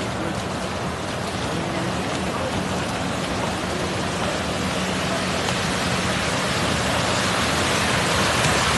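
Heavy rain falling: a steady, dense hiss that grows slightly louder toward the end.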